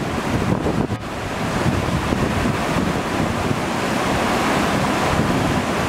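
Steady rushing of water from the river and Navitfossen waterfall, with wind buffeting the microphone.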